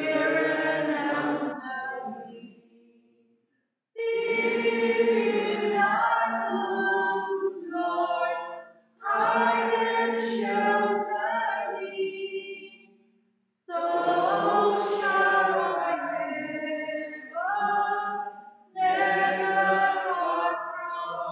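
Voices singing a slow church hymn without accompaniment, in phrases of about four seconds, each followed by a brief pause for breath.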